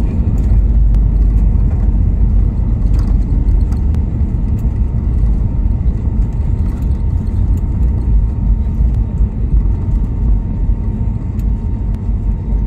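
Steady, loud low rumble of an Airbus A320neo's engines and airflow heard inside the passenger cabin around landing, with faint scattered clicks and rattles, easing slightly near the end.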